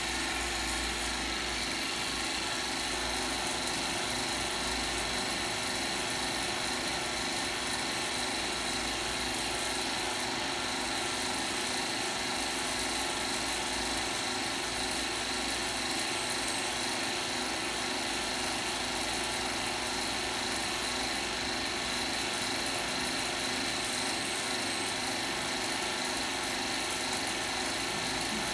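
Steady mechanical hum of a short-path wiped film distillation unit in operation, its vacuum pump and wiper motor running together, with a steady high-pitched whine on top.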